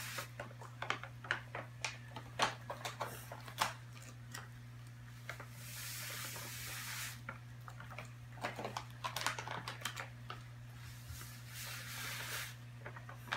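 Dry oatmeal cookie mix poured from pouches into a plastic mixing bowl: a hiss of pouring grains at the start, again about six seconds in, and again about eleven seconds in, with crinkling and tapping of the pouches in between. A low steady hum runs underneath.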